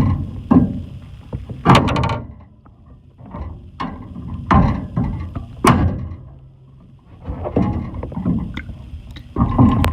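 Sinking-ship sound effect: a low rumble broken by a string of heavy knocks and thuds at irregular intervals, with two quieter spells between them.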